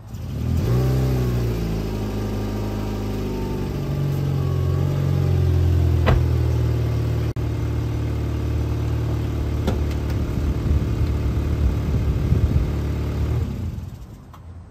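2010 Honda Insight hybrid's 1.3-litre four-cylinder engine starting and running loudly. Its pitch swoops as it catches, then settles to a steady low note before it shuts off about 13 seconds in. The loud exhaust note is, as the owner puts it, "an issue with the muffler or the exhaust system", likely a leak somewhere under the car.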